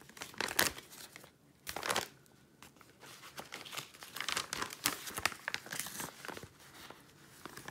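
Paper padded mailer crinkling and rustling as it is opened and a hand reaches inside, with some tearing of paper. The sound comes in irregular bursts with short pauses.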